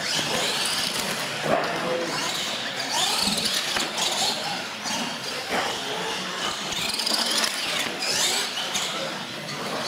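RC monster trucks driving fast across a smooth concrete floor, their motors rising and falling in pitch as the throttle is worked, with tyre noise and a few knocks.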